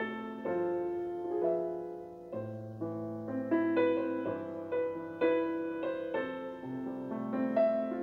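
Background music: a slow piano tune, notes and chords struck about once or twice a second and left to fade.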